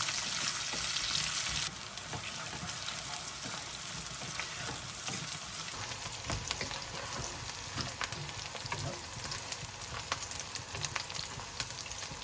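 Food sizzling and frying in hot oil in a pan, with scattered crackles and pops. The loud sizzle drops abruptly to a quieter steady sizzle about two seconds in.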